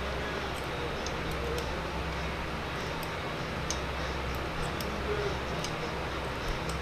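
Small light metal clicks of a small wrench on tiny square-head bolts as they are tightened down on a model engine's cylinder head, over a steady low hum.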